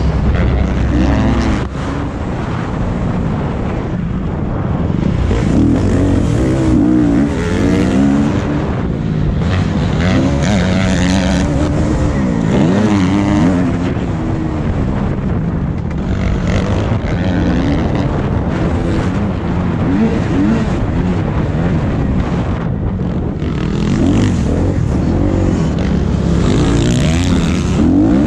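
Motocross bike engine revving up and down over and over as it is ridden around a dirt track, its pitch rising and falling every second or two.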